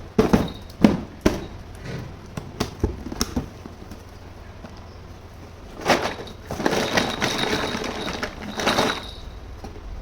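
Hard plastic toy kitchen pieces clicking and tapping as they are handled, a quick run of sharp clicks in the first few seconds, then about three seconds of rustling noise.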